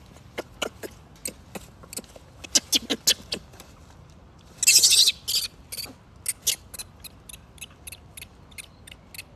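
Dry pine-needle litter crackling and rustling as macaques move about on it: a run of sharp, irregular clicks, with a short loud rustle about five seconds in.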